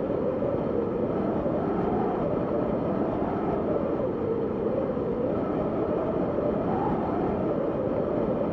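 Wind sound effect: steady rushing wind with a low howl that slowly rises and falls in pitch.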